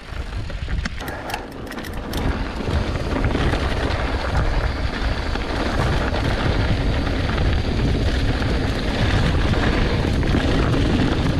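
Wind rushing over the action camera's microphone, with a mountain bike's tyres rolling over loose desert gravel as it rides down the trail. It grows louder over the first few seconds, then holds a steady rush, with a few sharp clicks in the first two seconds.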